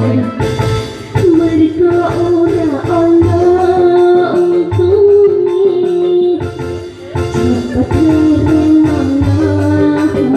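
A voice singing a dangdut song over a backing track with a steady drum beat.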